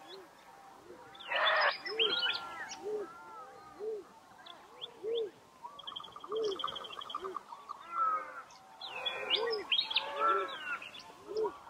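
Several birds calling at once in a dusk chorus. A row of short, low arched calls repeats throughout, with a harsh screech about a second and a half in and a fast, high trill around six seconds.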